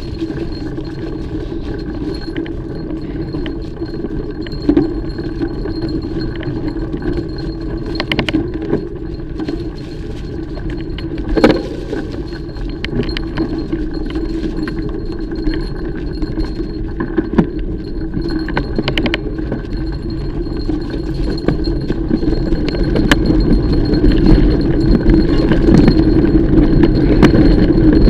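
Mountain bike being ridden over a dirt trail: steady tyre and drivetrain noise with metallic rattling from the bike and scattered sharp knocks from bumps. It grows louder over the last few seconds.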